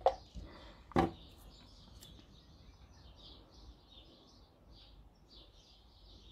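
Two sharp knocks about a second apart as paint pots are swapped on the table, with birds chirping faintly and steadily in the background.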